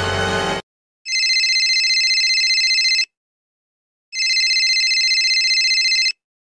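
Telephone ringing twice, each ring a high, rapidly trilling tone lasting about two seconds, with a second's pause between. A burst of music cuts off just before the first ring.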